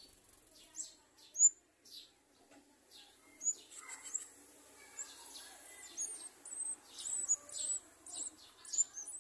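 Sunbirds chirping: short, high-pitched chirps that slide down in pitch, a few at first with one loud chirp about a second and a half in, then coming thick and fast from about six seconds in.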